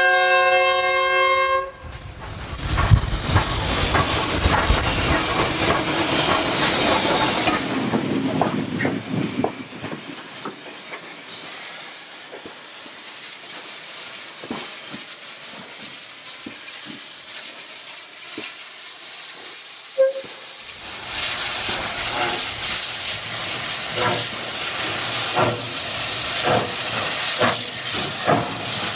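SY-class 2-8-2 steam locomotive sounding a steam whistle blast for the first two seconds or so, then working a passenger train away. Its steam hisses and its exhaust beats are heard, with a quieter stretch of clanks and clicks in the middle. Loud, regular exhaust beats and hiss return for the last several seconds.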